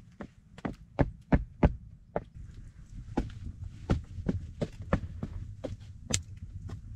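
Boot footsteps knocking on a floor of sawn wooden log rounds, a string of irregular hollow thuds, loudest about a second in, over a steady low rumble.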